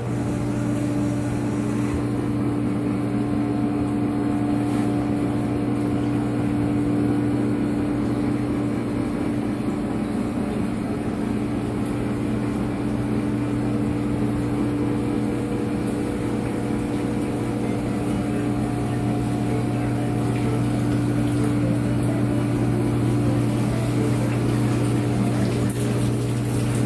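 A steady motor hum with a low drone, even and unchanging.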